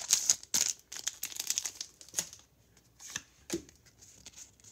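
Foil booster-pack wrapper crinkling and tearing as a pack of Pokémon trading cards is opened by hand. The crinkling is dense for about the first two seconds, then thins to a few scattered crackles.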